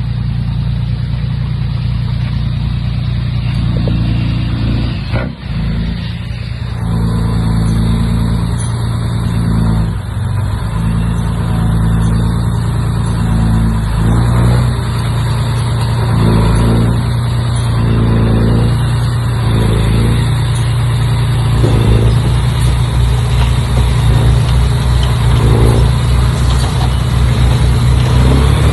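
Bulldozer's heavy diesel engine running steadily for the whole stretch, a loud low drone.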